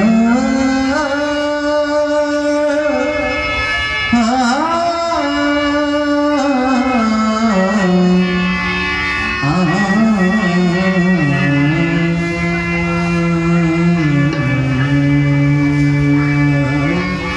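Devotional bhajan music: a male voice sings long held notes with slow gliding ornaments over harmonium, with tabla accompaniment.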